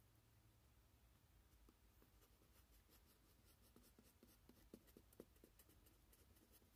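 Faint scraping and light tapping of a wooden craft stick pressing paper down into wet resin, with a few soft ticks in the second half.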